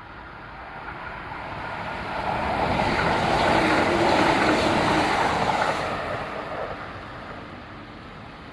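Kintetsu electric train passing through a station: the running noise builds, is loudest for a few seconds mid-way, then fades as it moves off.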